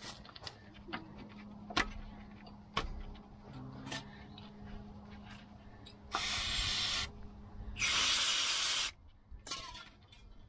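Aerosol spray can hissing onto a car's front brake caliper in two bursts of about a second each, the second louder, starting about six seconds in. Before them come light clicks and knocks of metal brake parts being handled.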